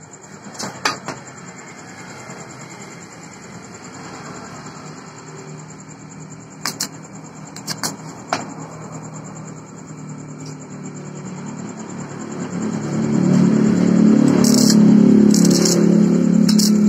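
A few sharp metal clicks as a welding ground clamp and electrode holder are handled. About twelve seconds in, a loud low drone rises and holds, with short crackles as a stick-welding electrode is scratched on the steel plate to strike an arc.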